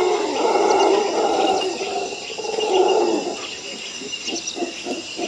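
A large wild animal growls loudly for about three seconds, then makes a run of short rhythmic grunts, about four a second.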